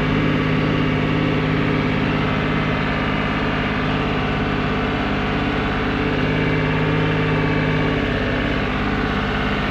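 Farm tractor's diesel engine running steadily, heard from inside the tractor's cab.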